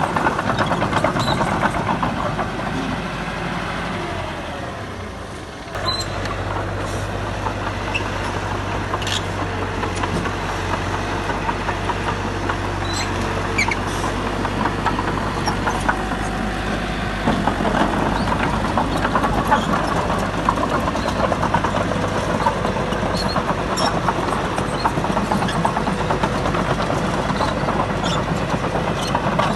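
Diesel engines of heavy earthmoving machinery running, with scattered sharp knocks. The sound fades off about four to five seconds in, then a steady low engine hum cuts in abruptly about six seconds in and holds.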